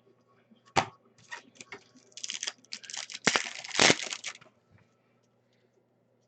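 A sharp snap, then a stretch of crinkling and tearing as a foil trading-card pack wrapper is ripped open and crumpled; it stops abruptly, leaving quiet.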